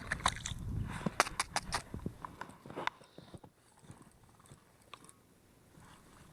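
Ice crunching and clinking as a frozen-over ice-fishing hole is cleared out, a quick run of sharp irregular knocks in the first three seconds, then only a few faint clicks.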